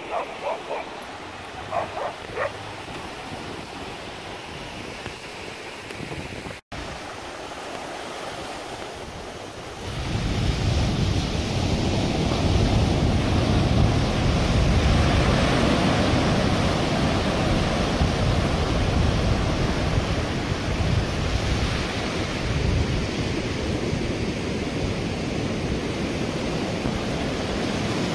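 Ocean surf breaking, with wind buffeting the microphone; it grows much louder about ten seconds in. In the first couple of seconds a Jindo dog gives a few short high whines.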